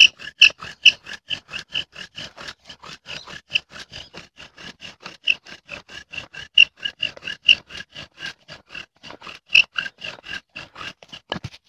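Improvised bow drill with a willow spindle squeaking rhythmically in the hearth board under fast back-and-forth bow strokes, about five squeaks a second, each at the same high pitch. The squeaking stops just before the end.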